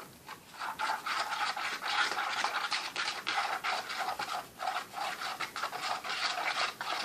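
A mixing tool stirring and scraping a mixture of glue, shaving cream and pink food dye on a plate, in quick repeated rubbing strokes.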